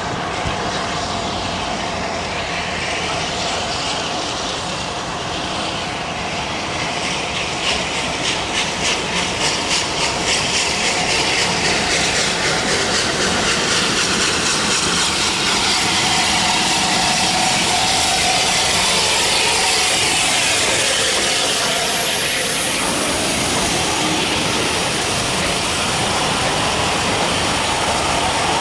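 Bulleid Battle of Britain class Pacific steam locomotive approaching and passing with its train, its three-cylinder exhaust beating about three times a second, then steam hissing and the coaches rolling by, loudest as the engine passes.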